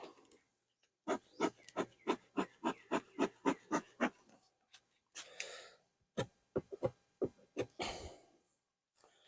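Bee smoker bellows pumped in a quick run of short puffs, about five a second, followed by two longer puffs. The smoker has been let burn low and is being worked to get smoke going again.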